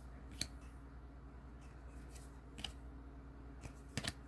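Faint handling of trading cards: a few short soft clicks as cards are flipped and tapped, about half a second in, again midway, and twice near the end, over a low steady hum.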